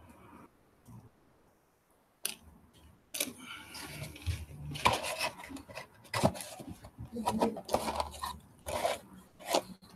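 Cardboard pizza box being handled and its lid closed, with irregular rustles, scrapes and sharp knocks starting about two seconds in, mixed with chewing.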